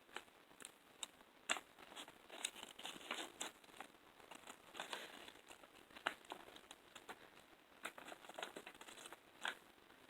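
Small LOL Surprise blind-bag packaging being crinkled and torn open by hand, a faint run of irregular crackles.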